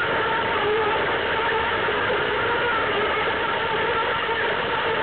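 Plarail toy train's small battery motor and plastic gears whirring steadily as it runs along plastic track, heard close up from on board, with a faint steady whine in the whir.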